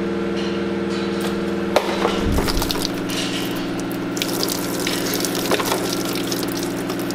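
Electric coolant pump running with a steady hum, a little water still inside it splashing and gurgling through. Its hum shifts about two seconds in with a brief low surge, and a few light clicks sit over it.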